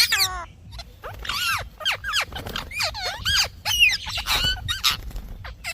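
Ringneck parakeet chattering: a quick string of short calls that swoop up and down in pitch, several a second.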